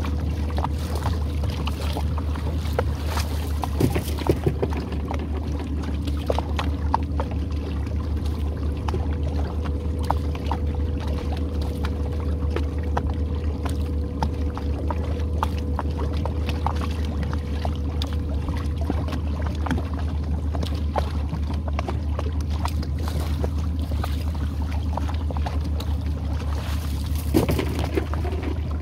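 Boat motor running steadily at low speed, a constant low hum, while the trotline runs over the side roller with scattered light clicks and drips. There are a few louder knocks about four seconds in and again near the end.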